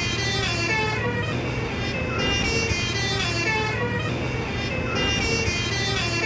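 A bus's 'telolet' musical air horn plays its short multi-note tune over and over, over the steady noise of the passing vehicle's engine and road.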